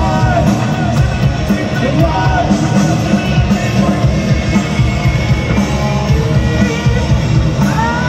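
Hard rock band playing live through a PA, heard from the audience: electric guitars, bass and drums with singing over them. Near the end a note slides up and is held.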